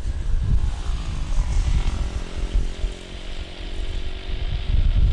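Jet engines of an Airbus A330-200, two Pratt & Whitney PW4168 turbofans, running as the airliner rolls along the runway for departure. A buzzing engine tone comes up about a second and a half in and fades near the end, over heavy gusty wind rumble on the microphone.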